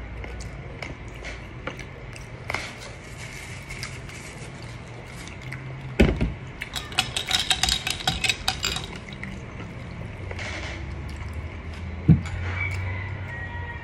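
Close-miked eating sounds: spaghetti slurped and chewed, then a knock about six seconds in followed by a few seconds of crisp crackling as fried chicken is bitten and chewed. Another knock comes near the end, followed by a drink sipped through a straw.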